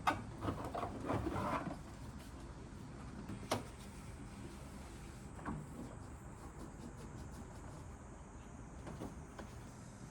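Household handling noises: a quick run of small clicks and rustles, then single sharp knocks about three and a half and five and a half seconds in, over a low steady hum.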